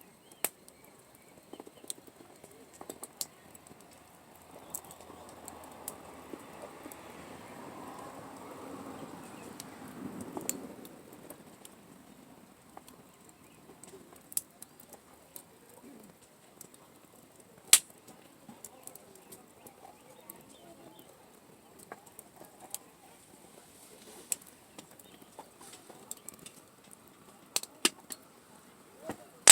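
Wood campfire crackling with scattered sharp pops at irregular intervals. A soft rushing noise swells and fades about a third of the way in.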